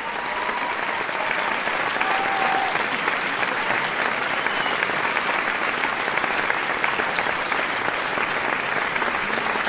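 A congregation applauding: many hands clapping in a steady, sustained round of applause that builds slightly in the first second.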